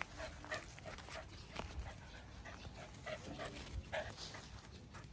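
An animal giving a run of short, squeaky whimpering calls at irregular intervals, with a few soft knocks among them.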